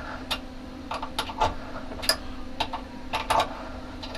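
Irregular sharp metallic clicks and taps from hand-tightening a wooden workpiece into the chuck of a CNC rotary axis, about a dozen spread over a few seconds, over a faint steady hum.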